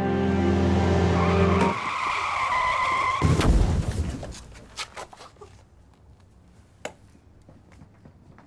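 Music cuts off, then car tyres screech for about two seconds and end in a loud crash impact a little over three seconds in, which dies away. Faint scattered clicks follow.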